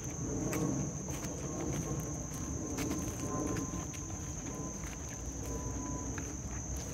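A steady, high-pitched chorus of insects trilling, over footsteps on a dirt path covered in dry leaves, with scattered crackles.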